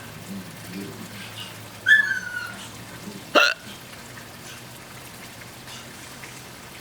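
A person hiccuping twice, about a second and a half apart, in a bout of persistent hiccups: the first hiccup carries a short high note that falls in pitch, the second is a sharp, abrupt hic.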